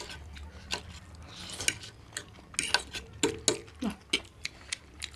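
Metal utensils clinking and scraping against dishes and a pot: a string of sharp clinks and knocks.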